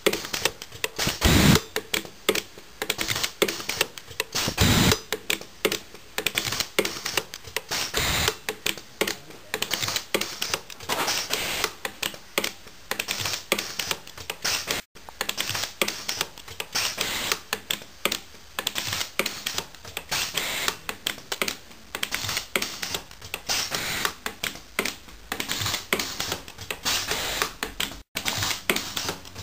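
Pulsed TIG welding arc of an SSG-V machine firing pulse after pulse, a rapid, irregular run of sharp clicks and snaps.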